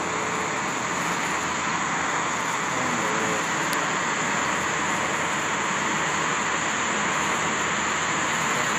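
Fireboat spraying its water cannons: a steady rushing hiss of water jets.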